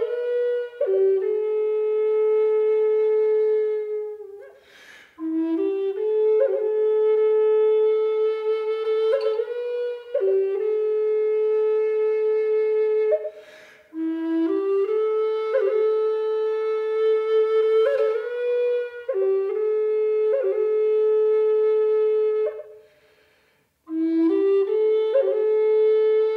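Background music: a solo flute playing a slow melody of long held notes in phrases, with short pauses between them.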